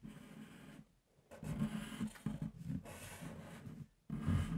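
Felt-tip markers scratching and rubbing across paper on a wooden tabletop as two people draw, in several stretches of strokes with short pauses between them.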